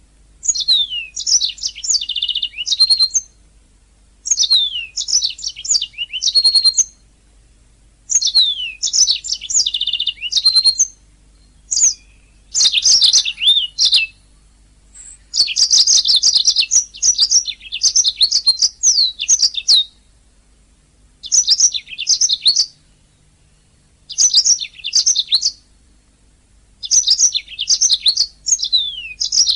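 Domestic canary singing: rapid chirping trills and downward-sweeping high notes in phrases of one to four seconds, separated by brief pauses.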